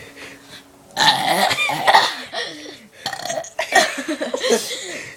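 A person burping loudly on purpose: a long, rough burp with a wavering pitch starting about a second in, then a second stretch of burping.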